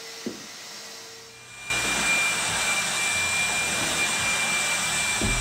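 A steady, loud rushing machine noise with a steady high whine, starting abruptly about two seconds in. Before it comes a faint hiss with a low hum and a single knock.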